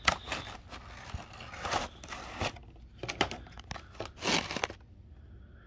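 Clear plastic packaging crinkling and rustling in irregular bursts as a model airliner is pulled out of it by hand, quietening near the end.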